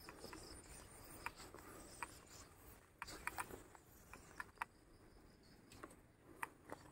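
Near silence broken by faint, irregularly spaced short clicks, about a dozen of them.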